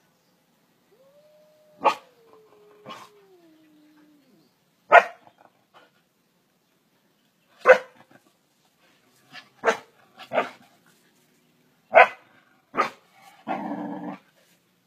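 Belgian Malinois barking in single sharp barks, about eight of them, spaced a second or two apart. A thin whine slides down in pitch over the first few seconds, and a longer, rougher call comes near the end.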